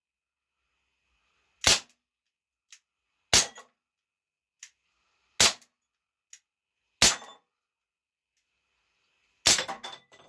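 Dan Wesson .357 CO2 revolver firing .177 pellets: five sharp shots in a row, about one every one and a half to two seconds. Fainter short clicks fall between some of the shots.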